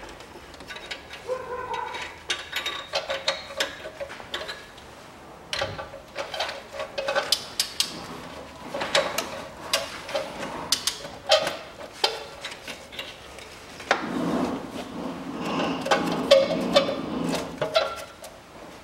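Ratchet and slotted oxygen-sensor socket working an oxygen sensor loose from the exhaust manifold: a run of metallic clicks and knocks with short squeaks, growing denser and louder about two-thirds of the way through.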